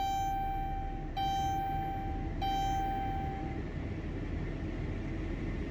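Car's dashboard warning chime ringing three times about a second apart, each tone slowly fading, after the ignition is switched on. A steady low rushing noise runs underneath.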